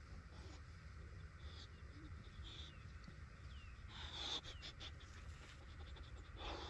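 Faint outdoor ambience: small birds chirping in the trees over a low steady rumble, with a short rushing noise about four seconds in and another near the end.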